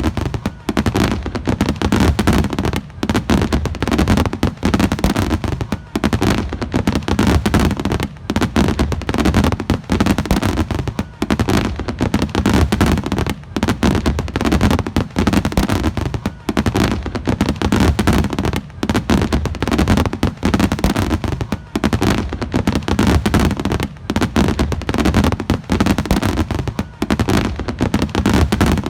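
Fireworks display going off continuously: rapid, overlapping bangs and crackling with no break.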